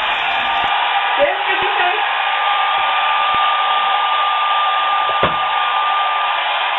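Loud, steady rushing noise with a thin steady whine running through it, and a single click about five seconds in.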